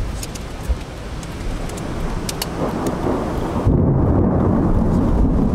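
Thunder rumbling from a thunderstorm, building from about halfway through and loudest in the last second and a half, over steady rain with a few sharp raindrop ticks early on.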